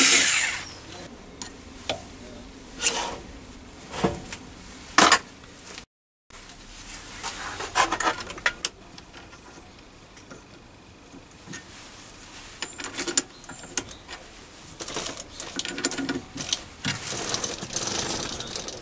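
A cordless electric screwdriver's motor whine cuts off right at the start, followed by scattered sharp metallic clicks, knocks and clinks as a four-jaw lathe chuck and its jaws are handled and the chuck is turned by hand, busier near the end.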